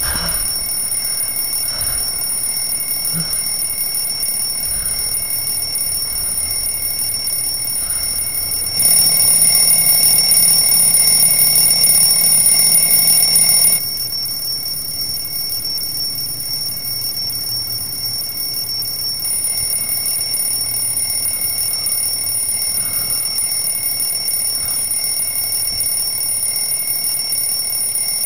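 Alarm clock ringing without a break, a steady shrill tone. About nine seconds in it gets louder for about five seconds, with a deeper layer joining, then drops back.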